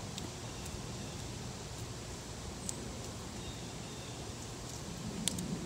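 Outdoor background ambience: a steady low hum with a few faint, sharp clicks, the sharpest near the end.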